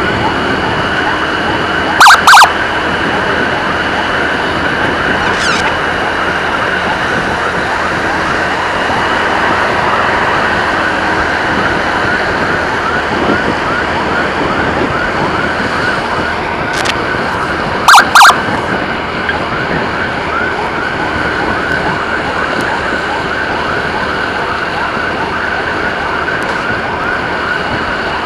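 Emergency sirens of an ambulance escort run continuously in a fast, repeating yelp. Two short, loud double blasts cut through, one about two seconds in and one about eighteen seconds in.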